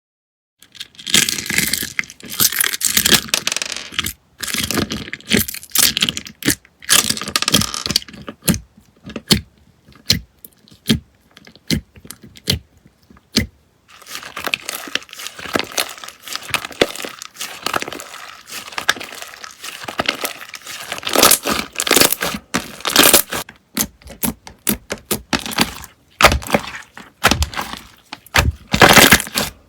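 Slime being squeezed and pressed by hand, giving dense crackling and popping. In the middle it thins to separate sharp pops for several seconds, then the dense crackling returns.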